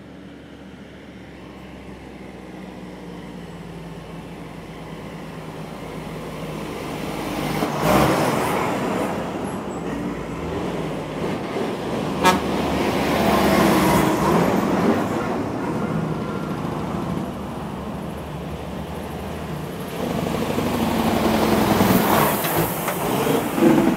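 Big-rig truck's diesel engine approaching, growing steadily louder over the first several seconds and staying loud, with horn toots and a sharp knock about halfway through.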